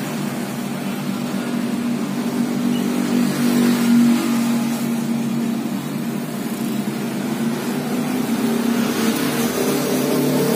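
A steady motor or engine hum, with its pitch shifting slightly near the end.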